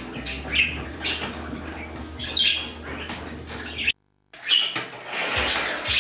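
Budgerigars chirping and squawking in short calls, several times over. The sound cuts out completely for a moment about four seconds in.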